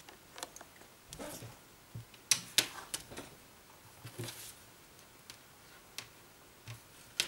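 Hands handling a thin stainless-steel tether cable and its small metal fittings on a desk: scattered clicks and taps, the sharpest a pair about two and a half seconds in and another near the end, with brief rustles in between.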